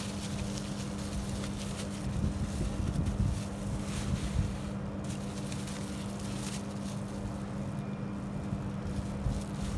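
Steady low electrical-sounding hum with a rough low rumble under it, and brief patches of hiss now and then.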